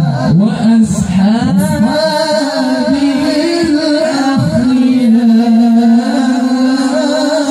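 A male qari's voice recites the Quran in melodic tilawah style through a microphone. Quick ornamental turns in the first two seconds lead into one long held note with a wavering pitch.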